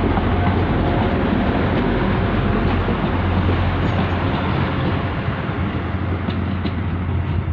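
Transport for Wales Class 175 diesel multiple unit running slowly into the platform: a steady low diesel engine hum under an even rolling rail noise.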